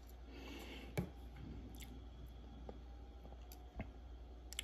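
Faint light clicks of steel watchmaker's tweezers against a plastic parts tray and tiny watch parts while picking out a small screw: one sharp click about a second in and a couple more near the end.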